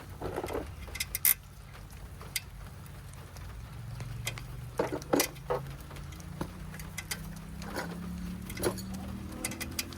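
Scattered clicks and knocks of car parts and fittings being handled by hand in the engine bay, loudest a little over a second in and around five seconds in, over a steady low hum.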